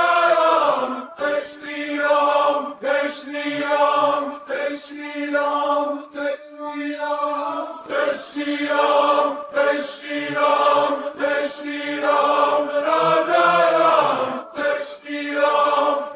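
Music soundtrack of male voices chanting in chorus, a Hindu devotional chant in long held phrases that break every second or two.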